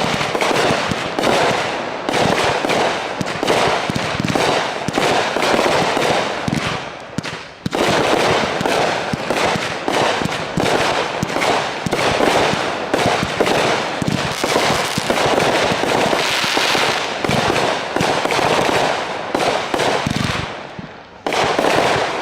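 Fireworks going off in a rapid, continuous barrage: many bangs and cracks a second, overlapping, with a short lull about seven seconds in and another near the end.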